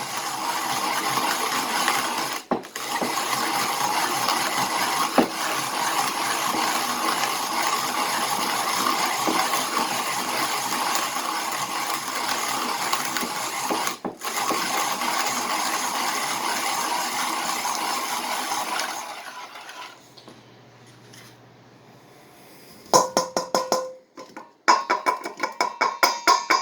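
Hand-crank coffee grinder grinding medium-roast beans to an espresso grind: a steady gritty grinding with two short breaks that stops about twenty seconds in. The harder medium roast takes force to turn. Near the end comes a quick run of metallic clinks and taps.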